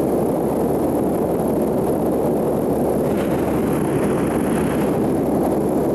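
Steady drone of a Diamond DA20 Katana light aircraft's piston engine and propeller in level cruise. A brighter hiss joins about three seconds in.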